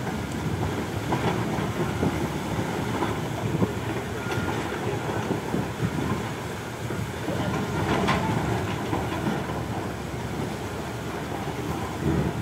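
Komatsu hydraulic excavator's diesel engine running with a steady low rumble as the machine works in the shallow surf, with a few short knocks along the way.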